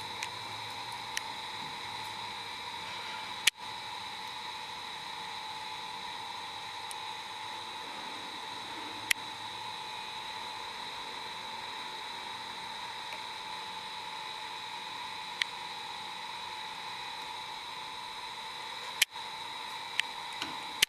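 Steady hiss with a faint constant tone, broken by a few sharp isolated clicks, the loudest about a third of the way in and near the end.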